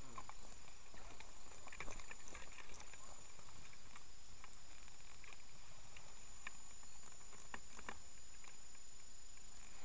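Footsteps and rustling through ferns and undergrowth, with scattered sharp clicks and knocks at irregular times.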